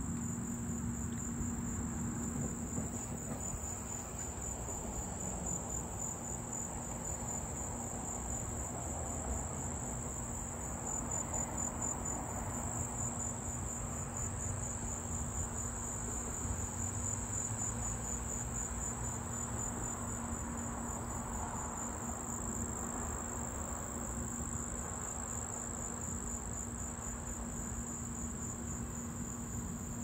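Insects trilling in a high, steady, unbroken chorus, with a low steady hum and a faint low rumble underneath.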